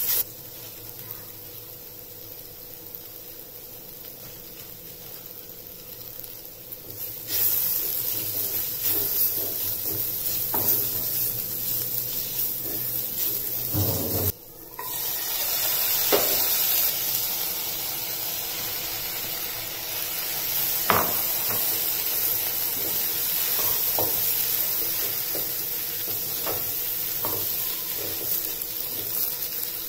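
Onion and tomato masala sizzling in a kadai, stirred and scraped with a wooden spatula, with scattered short scrapes and taps of the spatula against the pan. The sizzle is quieter for the first several seconds and louder after about seven seconds in.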